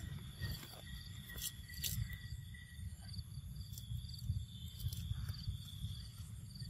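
Outdoor woodland ambience: insects trilling steadily with a soft pulse about twice a second, over a constant low rumble, with a few sharp clicks scattered through.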